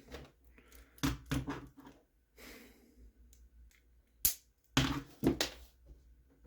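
Small parts and tools handled on a workbench while fitting an RC crawler's rear suspension: scattered clicks and knocks, with one sharp click about four seconds in.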